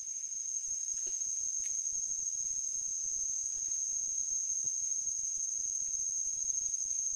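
Forest insects making a steady, high-pitched drone that holds one pitch without a break.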